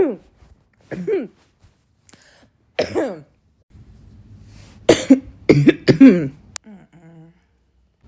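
A woman coughing in short separate bursts, then a quick run of about four coughs some five seconds in. It is a lingering cough, which she puts down to the last of an earlier illness and to allergies.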